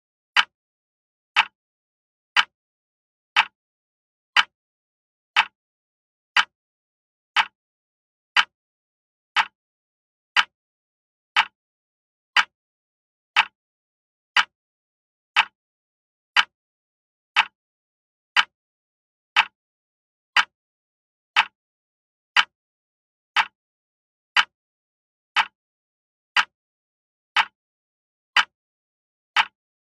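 Clock ticking: single sharp ticks at a steady one per second, with silence between.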